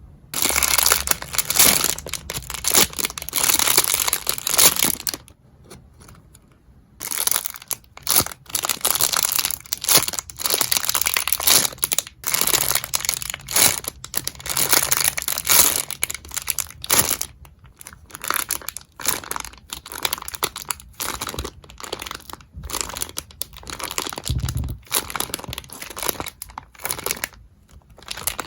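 Packaging crinkling and rustling as a package is unwrapped and handled, in dense rapid crackles with a brief pause about five seconds in.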